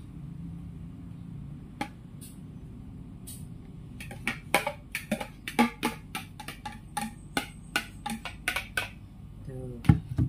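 A metal spoon clinking and tapping against aluminium foil trays: a quick, irregular run of sharp clicks in the second half, with the loudest knock near the end.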